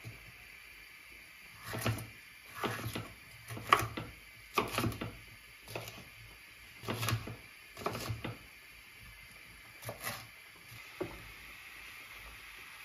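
Kitchen knife slicing a bell pepper on a wooden cutting board: about a dozen separate cuts at an uneven pace, each ending in a short knock of the blade on the board.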